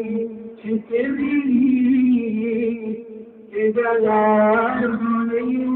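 Male voices chanting a noha, a Shia lament: long, wavering sung lines over a steady low held note, breaking off briefly about three seconds in.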